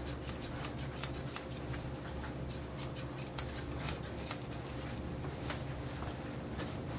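Grooming shears snipping through a dog's thick coat: runs of quick, crisp cuts, several a second, broken by short pauses.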